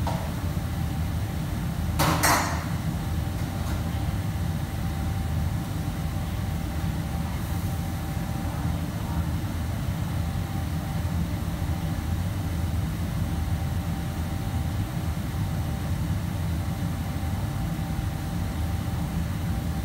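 Steady low rumble of a working commercial kitchen, with a faint steady hum. About two seconds in comes one short clatter of cookware as the cook handles pans at the counter.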